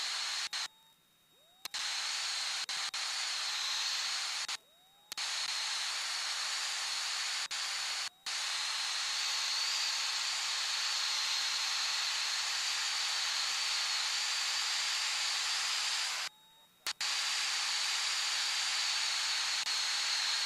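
Steady hiss of light-aircraft cockpit noise coming through an open headset microphone on the intercom, with a thin high whine running through it. The intercom's squelch cuts it to near silence several times, the longest for about a second.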